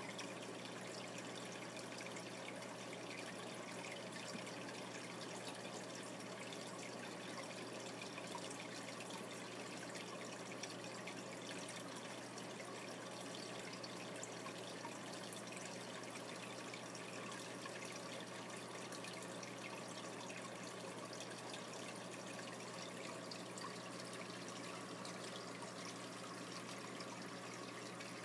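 Water in a saltwater aquarium trickling steadily as it circulates, over a steady low hum.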